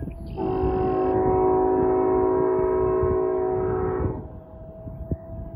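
Diesel locomotive air horn, heard from a distance down the line: one long blast of about four seconds, several notes sounding together at a steady pitch, starting and stopping cleanly.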